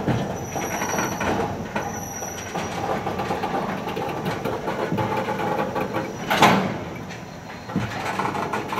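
Loaded freight tank cars rolling slowly past, crawling up a steep grade, with steady wheel-on-rail rumble and clicking. A faint high wheel squeal comes in the first couple of seconds, and one loud clank about six and a half seconds in.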